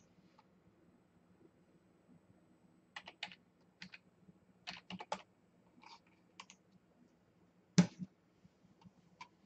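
Keystrokes on a computer keyboard as a six-digit two-factor authentication code is typed in irregular bursts, followed by one louder click near the end.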